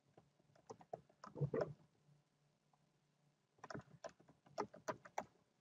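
Faint clicking of computer keys: scattered clicks in the first two seconds, a pause, then a quicker run of clicks in the last two seconds.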